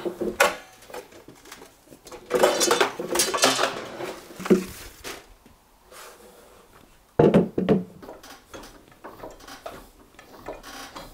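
Clanking and clattering of metal tools and equipment in irregular bursts, with a longer spell of clatter about two seconds in and another sharp burst around seven seconds in.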